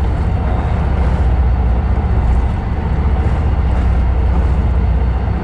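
Steady low rumble of a fishing boat's engine running, with a constant wash of noise over it.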